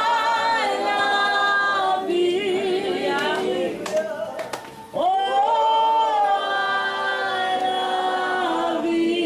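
A woman singing unaccompanied into a handheld microphone, in long held notes, with a short break between phrases about halfway through.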